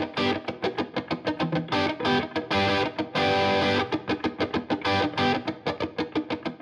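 Intro music: electric guitar playing quick, short chords in a steady rhythm, with a few longer held chords.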